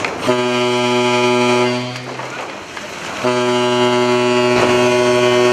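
Ship's horn sounding two long, deep, steady blasts about a second apart.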